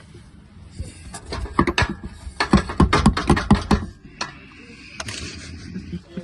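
Hand tools working the bolts of a car's tail shaft: quick, irregular metallic clicks and knocks, busiest from about two and a half to four seconds in.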